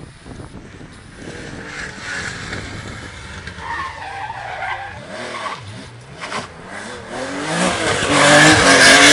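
Rally car coming through a tarmac stage: its tyres squeal through a corner while the engine builds up, the revs rising and falling as it accelerates, growing loudest near the end as it passes close.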